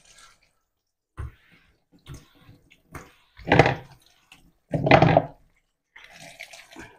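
Water splashing at a kitchen sink in short bursts as dishes are rinsed under the tap, with a couple of soft knocks. Two louder splashes come about halfway through and about five seconds in.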